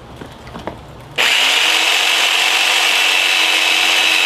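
Electric jigsaw switched on about a second in, then running steadily as its blade saws through a pack of cigarettes. A few faint handling clicks come before it starts.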